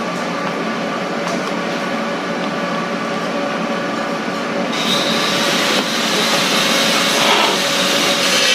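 Electric drill driving a jigsaw adapter, its motor running steadily with the blade working up and down. About five seconds in, the sound turns brighter and a little louder as the blade starts cutting wood.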